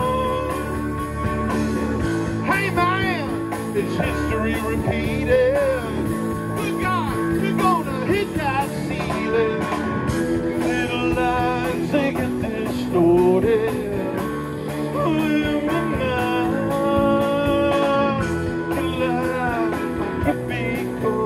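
Live band playing a blues-rock song with guitar, bass, drums and keyboard; a lead line of bending, wavering notes rides on top.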